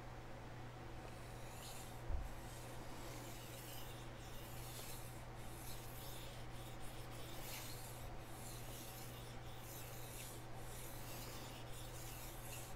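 Steel chef knife blade stroked back and forth across a Naniwa Chosera water stone: faint, repeated short scrapes, roughly one or two a second, from about a second in, while one bevel is ground to raise a burr. A single soft knock about two seconds in.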